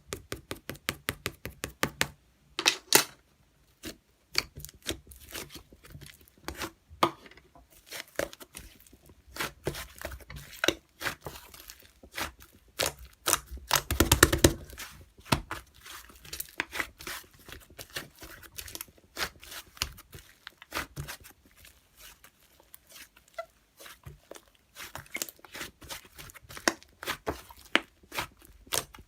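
Slime being squished and worked by hand, with rapid sticky clicks and pops, several a second, loudest in a cluster about halfway through.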